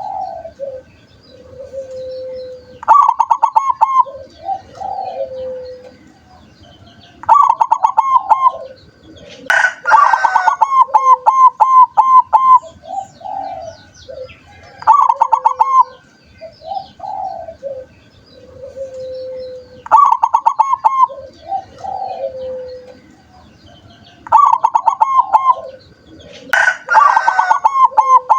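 Zebra doves (perkutut) cooing: a loud phrase of quick rolling notes repeats about every four to five seconds, with softer, lower coos in between. Twice the phrase runs longer.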